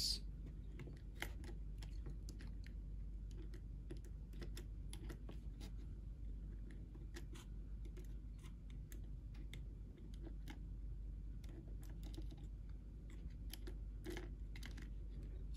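Faint, irregular small clicks and taps of a small screwdriver and tiny metal contact pieces against the plastic housing of a Mercedes power seat switch being reassembled, over a steady low hum.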